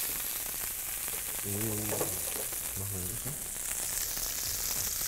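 Poularde breasts frying in a hot pan with a steady sizzle as the skin crisps. A voice murmurs briefly twice near the middle.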